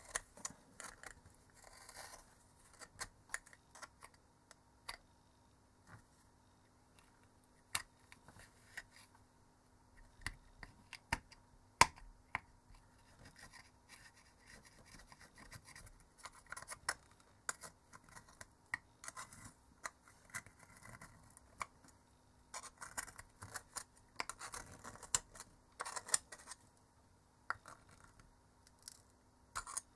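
Small metal screwdriver scraping and prying at semi-hard rubbery potting glue inside a metal LED spotlight housing: irregular scratching with scattered sharp clicks, the loudest click about twelve seconds in.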